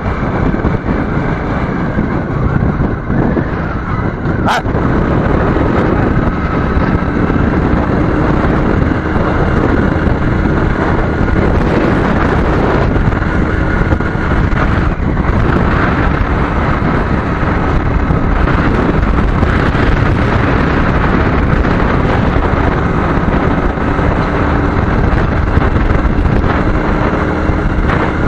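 Wind rushing over a helmet-mounted microphone on a moving motorcycle, with the bike's engine running steadily underneath. A single sharp click about four and a half seconds in.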